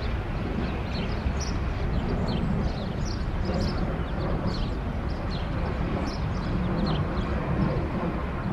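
Freight train rolling away down the track, a steady low rumble, with small birds chirping repeatedly over it.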